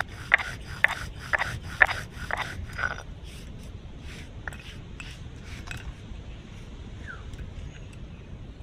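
Stone roller grinding dry-roasted whole spices on a ridged stone slab (shil-nora): rough rasping strokes, about two a second, for the first three seconds. Then quieter brushing and scraping as the coarsely ground spice is gathered up by hand.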